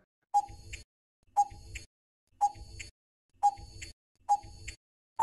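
Countdown timer sound effect: five clock ticks, about one a second.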